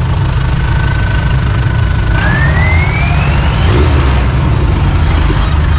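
Off-road vehicle engine running under a heavy, steady low rumble, with a thin whine that holds one pitch and then climbs steadily about two seconds in.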